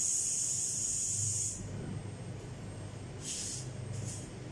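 Air hissing out of the electric scooter's pneumatic tyre valve as it is let down: a steady hiss that cuts off about a second and a half in, then three short bursts. The tyre is being deflated because it is over-inflated, too hard.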